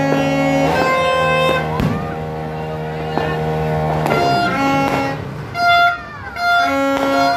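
Several plastic New Year's toy horns (torotot) blown at once: long held blasts at different pitches overlap for the first few seconds, then short repeated honks follow near the end.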